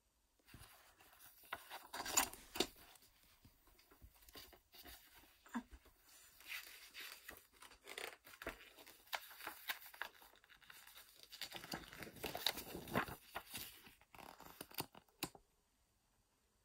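Paper booklet being handled and its pages turned: a rustling, crinkling sound with sharp clicks, loudest about two seconds in and again around twelve to thirteen seconds.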